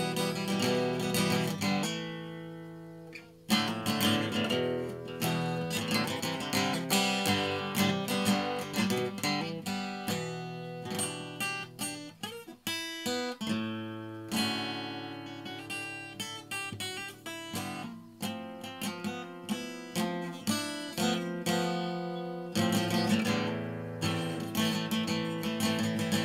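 Acoustic guitar music, plucked and strummed, with a brief lull about three seconds in.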